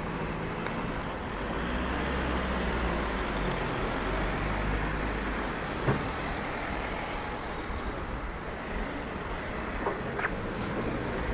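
Street ambience of road traffic: a steady low rumble from passing vehicles, heavier in the first half, with a few short clicks or knocks in the second half.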